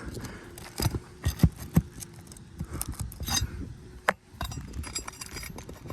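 A roof shingle being pried loose and pulled from its nails: scraping with several sharp clicks and knocks, the loudest about one and a half to two seconds in.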